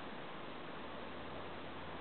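Steady hiss with no distinct calls, and a faint low hum coming in about a second in.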